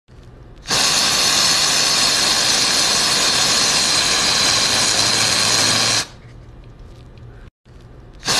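Aerosol spray can fired through a thin red straw nozzle: one loud, steady hiss that starts about a second in and cuts off sharply about five seconds later.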